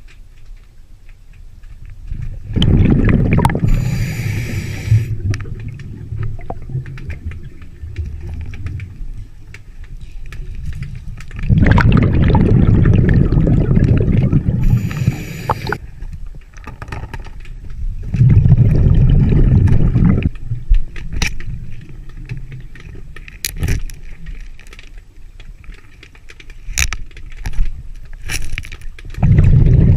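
Scuba diver breathing through a regulator underwater: four long bursts of exhaled bubbles, about 2.5, 11.5, 18 and 29 seconds in, with a short high hiss from the regulator twice. Small sharp clicks between breaths, mostly near the end, come from stones and gravel being handled on the riverbed.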